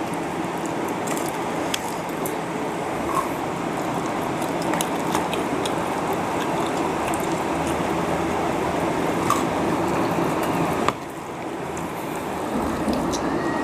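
Small wet squelches and clicks of a roasted chicken leg being torn apart and chewed, over a steady background noise that drops suddenly about eleven seconds in.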